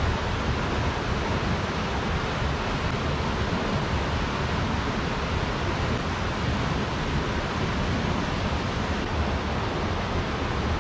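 River water rushing over rocks, a steady even rush with no breaks.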